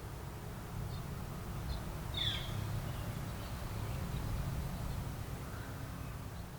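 Outdoor background: a low steady rumble with a few brief bird chirps, the clearest about two seconds in.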